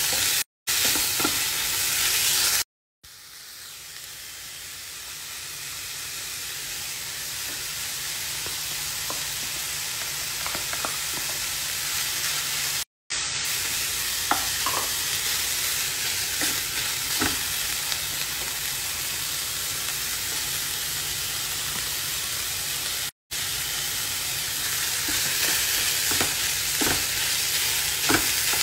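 Diced chicken and vegetables sizzling in a nonstick frying pan while being stirred with a wooden spoon, with faint scrapes of the spoon against the pan. The sizzle drops out briefly a few times; after the second break it starts quieter and slowly builds back up.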